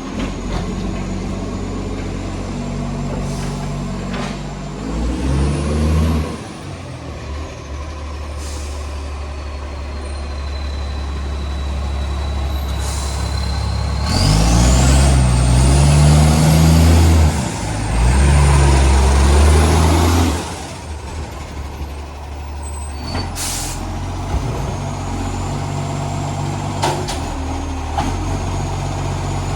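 Side-loader garbage truck's diesel engine running with a massive exhaust leak, revving up hard about five seconds in and again for several seconds in the middle, with a high whine that rises and falls with the revs. Several short sharp air hisses break in.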